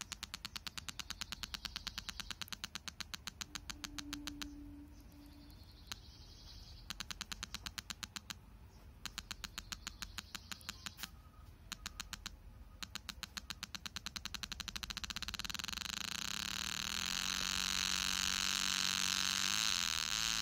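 A small loudspeaker driven by a 555 timer oscillator clicking in a rapid, engine-like putter, as the circuit's variable resistor is turned with a screwdriver to tune the pulse rate. The clicks cut out three times, then near the end speed up and merge into a steady buzz.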